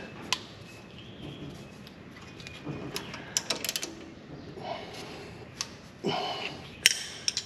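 Scattered light clicks and metallic clinks from hand tools and brake caliper parts being handled, with a short scraping sound about six seconds in.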